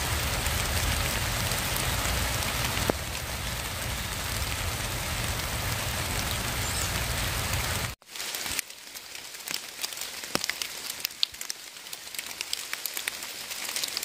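Steady rain falling on forest foliage. About eight seconds in it cuts to lighter rain, with separate drops ticking.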